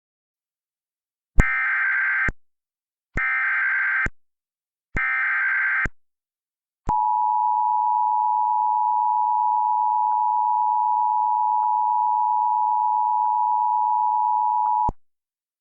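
Emergency Alert System tones: three one-second bursts of SAME header data tones, then the two-tone Attention Signal (853 and 960 Hz) held steady for about eight seconds before it cuts off. The sequence opens an EAS warning broadcast.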